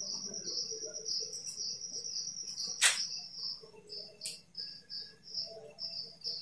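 Cricket trilling steadily at a high pitch, breaking into a string of separate pulses in the second half, over faint pen-on-paper scratching, with one sharp click about three seconds in.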